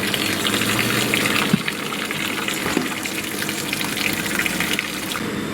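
A hoe stirring and scraping a wet mix of chicken mash, vegetable scraps, pancake batter and seed in a wheelbarrow: a continuous wet, scratchy churning, with a steady low hum underneath.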